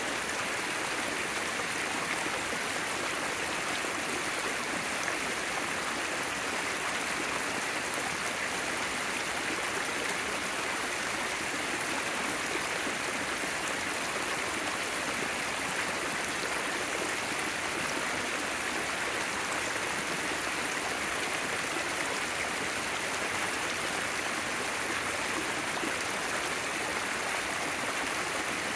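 Rain-swollen mountain creek pouring over a sloping rock ledge into a frothy pool: a steady, even rush of water.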